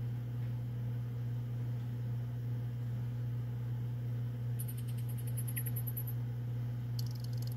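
A steady low hum throughout, with a burst of fast, high-pitched insect chirping about four and a half seconds in and another starting near the end.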